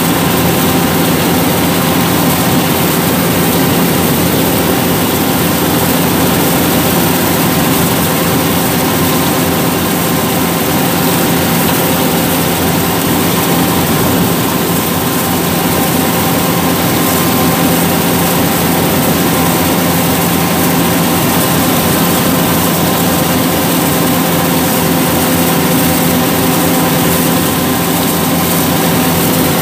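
Yanmar 850 combine harvester's diesel engine and threshing machinery running steadily under load while cutting rice, heard loud and close from the driver's seat.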